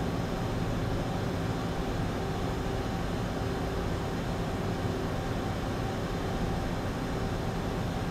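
Mazak Quick Turn 200 CNC lathe running: a steady machine hum with several constant tones over an even noise.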